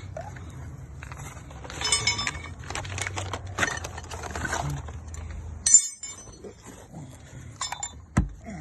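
Metal tools clinking and rattling, with several ringing metallic clinks, over a low steady hum that cuts off suddenly about six seconds in.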